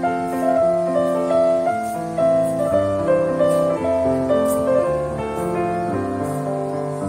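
Background piano music: a melody of single notes moving over lower held chords.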